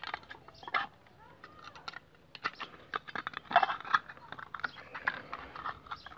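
Irregular light clicks and taps of a plastic light-fitting cover being handled and pushed back over the wires. There is a sharp click at the start and a busier run of clicking in the middle.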